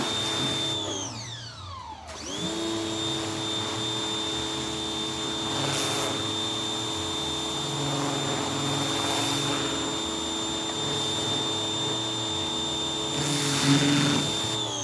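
Electric pressure washer's motor running with a steady high whine. It winds down about a second in, starts again at about two seconds and runs steadily, then winds down right at the end, switching on and off with the spray-gun trigger.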